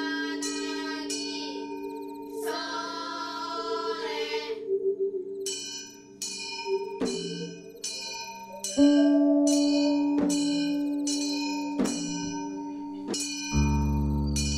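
Ambient electronic sound-art music: a sustained tone under a short wavering, voice-like passage, then a run of struck, ringing bell-like tones about once a second. A deep low drone comes in near the end.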